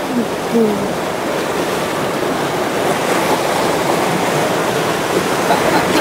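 Steady rush of churning white water in a river rapids ride channel around a round raft, with a few faint voice fragments in the first second.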